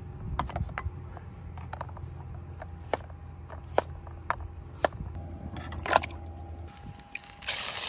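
Camp cooking gear being handled: scattered sharp knocks and clicks of pots and utensils over a low steady rumble, with a hiss starting near the end.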